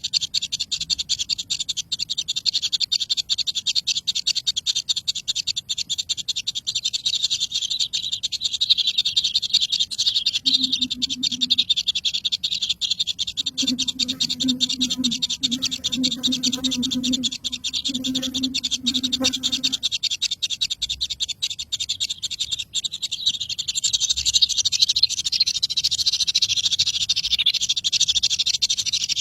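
Outdoor animal chorus: a steady high-pitched buzzing runs throughout, and a low, croak-like call pulses repeatedly for several seconds around the middle.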